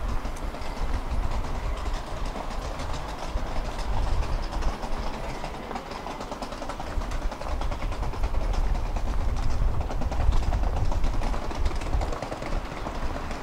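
Tram running along the track: a continuous rumble of wheels on rails with fine clicking, swelling louder a few times as it goes.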